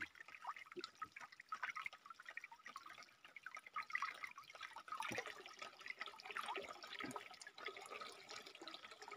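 Spring water running from a spout into a brim-full plastic drum, trickling and splashing into the water below. A hand cupped in the falling stream breaks it up.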